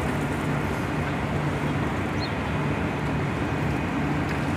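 Steady low drone of heavy machinery with a constant hum underneath, from a large cargo ship moored alongside. A faint short high chirp about halfway through.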